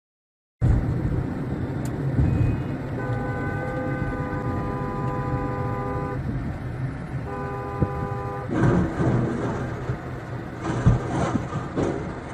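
Vehicle engine and road noise with a vehicle horn sounding twice: a long blast of about three seconds, then a shorter one about a second later. Near the end come several loud, sudden bangs and knocks.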